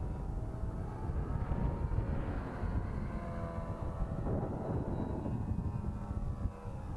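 Nitro glow engine of a model airplane running at high revs, heard close up from on board, its pitch shifting about four seconds in, over a low rumble of wind on the microphone.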